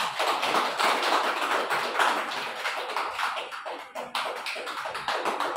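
A small group of people applauding: quick, dense hand claps, easing a little after about three seconds.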